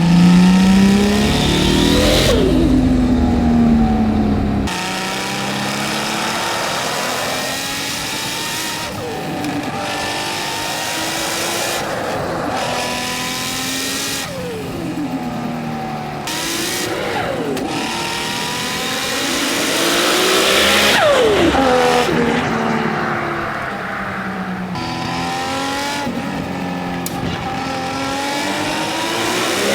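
Nissan R32 Skyline GT-R's HKS 2.8-litre stroker RB26 straight-six with a single T04Z turbo, heard from inside the car, revving hard under acceleration again and again. Its pitch climbs and then falls steeply about six times.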